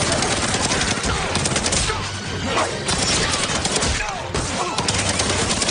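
Cartoon sound effects of rapid automatic gunfire, with bullets striking the floor, over music.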